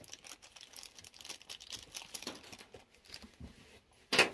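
Small packaging being handled and unwrapped by hand: scattered light plastic crinkles and rustles, then one short, loud noise near the end.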